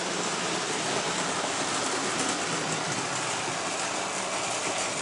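Hornby model trains running round the layout: a steady whirring of small electric motors and wheels on the track, with a few faint ticks near the end.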